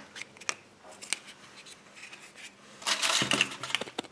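Handling a Kinder Surprise chocolate egg as it is unwrapped and broken open: scattered small clicks and rustles of the foil wrapper, with a louder crinkling burst about three seconds in.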